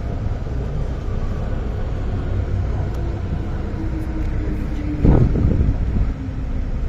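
MTR Island Line M-Train electric multiple unit running, heard from on board: a steady low rumble of wheels and running gear. A faint steady hum joins it about three and a half seconds in, and a loud clatter comes about five seconds in.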